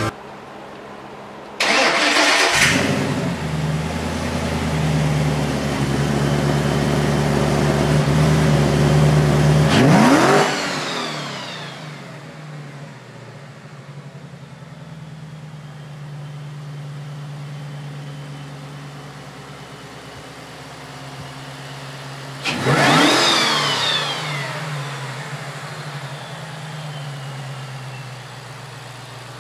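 Supercharged V8 of a 1967 Mustang GT500 Eleanor starting up about a second and a half in and running at a loud fast idle. It is revved once about 10 seconds in and settles to a quieter idle, then given a quick blip of the throttle near 23 seconds.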